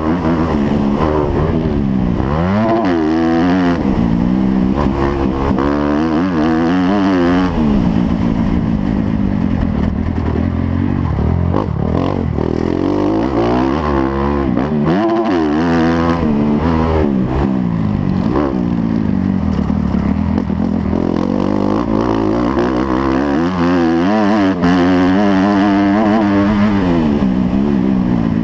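Motocross bike engines revving up and falling back again and again as the bikes race, gear change after gear change, with more than one engine sometimes heard at once.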